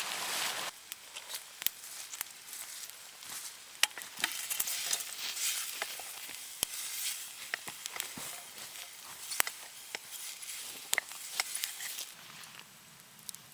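Food sizzling and crackling as it cooks and chars over the heat, with many irregular sharp pops. A steadier hiss cuts off abruptly in the first second.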